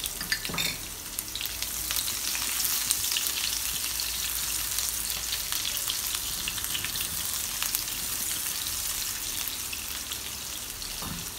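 Sliced onions sizzling steadily in hot ghee in a nonstick pan, with fine crackling, while a spatula stirs them.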